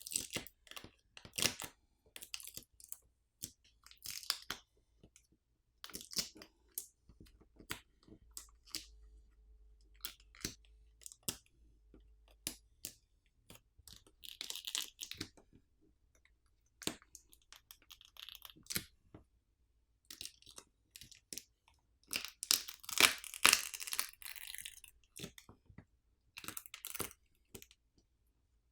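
Smartphone battery being pulled and pried off its adhesive by its pull pouch: irregular crackling and tearing of the adhesive and plastic film, with light clicks and scrapes. The loudest stretch of tearing comes about three-quarters of the way through.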